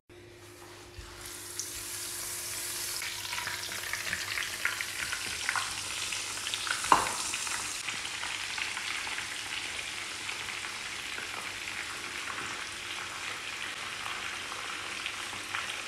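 Croaker fish frying in hot oil in a pot: a steady sizzle with scattered crackles and pops that builds up about a second in. There is one sharper, louder crack about seven seconds in.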